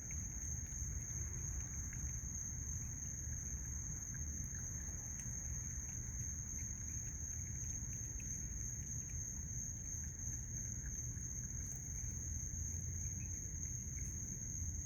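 Night insects, crickets, trilling in one steady high-pitched drone over a low rumble.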